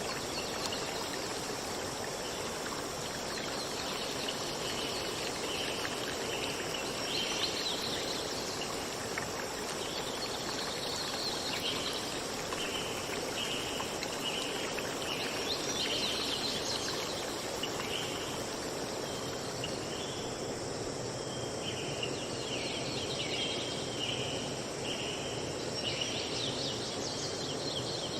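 Forest ambience: a steady hiss under a continuous high insect drone, with strings of short, rapidly repeated high chirps from birds and insects throughout.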